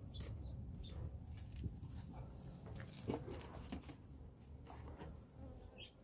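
Honey bees buzzing around an open hive, with scattered brief clicks and rustles of handling.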